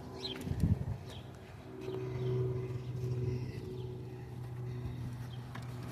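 A few faint bird chirps over a steady low hum.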